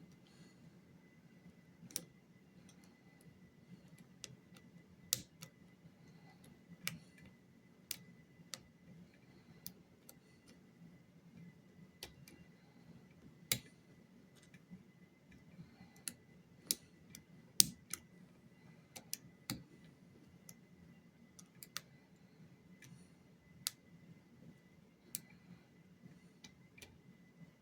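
Lock picks working inside a lock: irregular small sharp clicks and ticks, roughly one or two a second, over a faint steady high tone.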